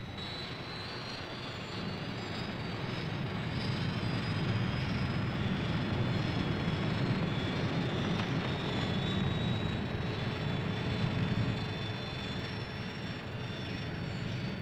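Steady jet-engine whine and rumble of a hovering jet-powered aircraft, its high whine climbing slightly in the first few seconds and the rumble swelling a little before holding steady.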